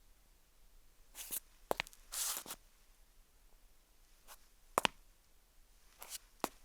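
Footsteps: a handful of slow, unevenly spaced steps, some sharp and short and one longer scuff about two seconds in.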